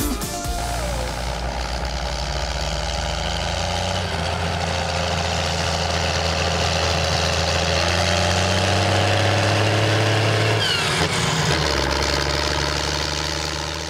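Ford TW-35 tractor's six-cylinder diesel engine working hard as it pulls a grain trailer across a stubble field, the exhaust puffing black smoke. The engine note is steady, climbs about four seconds in and shifts again near the end.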